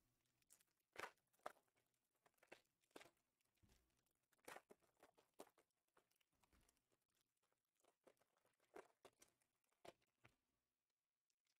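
Faint, scattered crinkles and light taps of trading-card box packaging being handled. There are about fifteen short sounds with near silence between them.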